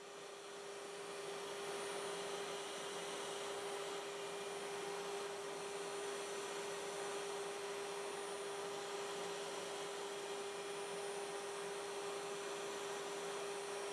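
Wood router on a DIY CNC machine spinning at speed: a steady high hum with a hiss over it, fading in over the first second or two.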